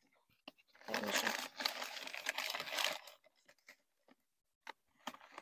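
Crumpled plastic sheeting crinkling as small plastic plant pots are pushed down into it inside a large plastic planter, for about two seconds starting a second in, followed by a few light plastic taps and clicks.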